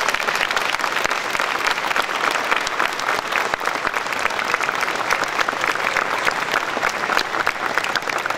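Audience applauding steadily, a dense patter of many hands clapping at the end of a talk.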